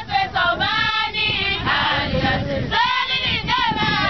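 A group of young women singing a traditional Zulu song together in chorus, many voices at once with melodies that slide up and down.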